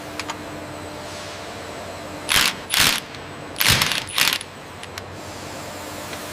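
Factory-floor machinery noise with a steady low hum, broken by four short, loud, sharp bursts between about two and four and a half seconds in.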